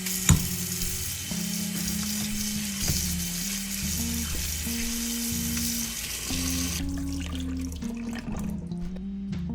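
Water running from a tap in a steady hiss that stops suddenly about seven seconds in.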